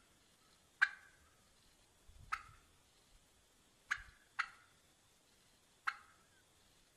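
Wild turkey hen cutting: five short, sharp clucks at uneven intervals, each dropping quickly in pitch.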